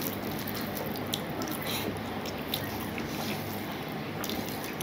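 Fingers squishing and mixing rice with dal on a steel plate, with scattered small wet clicks, and soft chewing.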